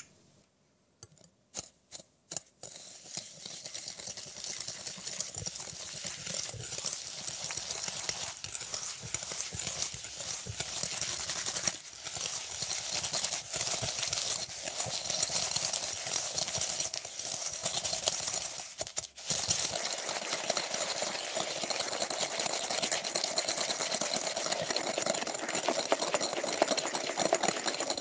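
Metal wire whisk beating an egg yolk into granular erythritol in a glass bowl. The wires make a rapid, gritty scraping and clicking against the glass, with a few separate clicks in the first couple of seconds and a brief pause about two-thirds through.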